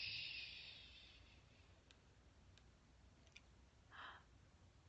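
A long whispered 'shhh', the end of a drawn-out 'hush', fades away over the first second. Then near silence with a few faint clicks and one short breath about four seconds in.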